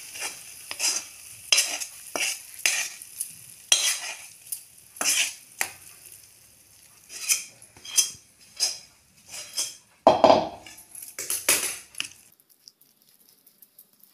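Metal spatula scraping a thick, sticky cooked beetroot paste out of a steel kadhai onto a steel plate, in an irregular string of scrapes and knocks about every half second to a second. The scraping stops about two seconds before the end.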